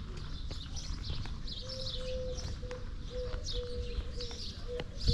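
Small birds chirping over and over, with faint scattered ticks and, from about two seconds in, a low steady tone that keeps breaking off.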